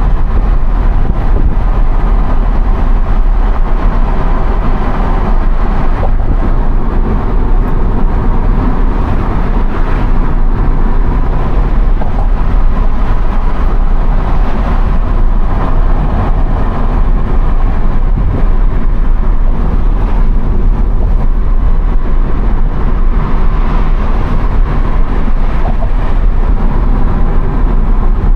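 Steady road and tyre noise with engine hum inside the cabin of a Subaru Impreza cruising at highway speed.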